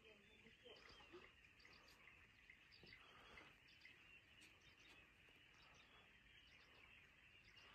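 Near silence: faint outdoor ambience with scattered short, high bird chirps over a faint steady hiss.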